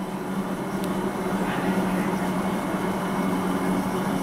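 Electric rack train of the Gornergrat railway running, heard from inside the driver's cab: a steady motor hum at one pitch over the rumble of the running gear, growing louder through the first second and then holding steady.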